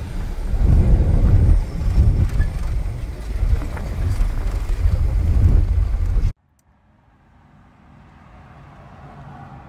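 Traffic and wind noise heard from a moving car, a strong, uneven low rumble that cuts off abruptly about six seconds in. After the cut there is a faint, steady low hum that slowly grows louder.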